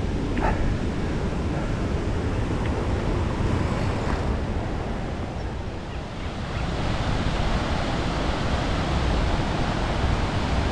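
Steady rushing wind buffeting a GoPro's microphone while riding an e-mountain bike, heavy in the low end. A brighter hiss grows in from a little past halfway.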